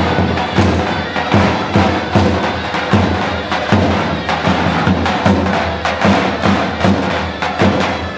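Halay folk dance music with a strong, regular drum beat.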